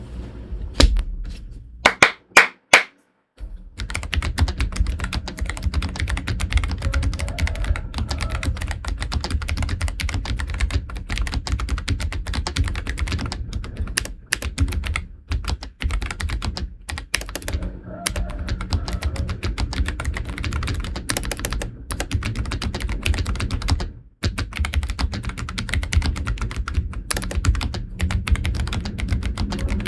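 Typing on a Keychron K3 Ultra 8K low-profile mechanical keyboard with Banana switches and low-profile PBT keycaps. A few separate loud key clacks come about two seconds in, then fast continuous typing runs from about four seconds in, with brief pauses.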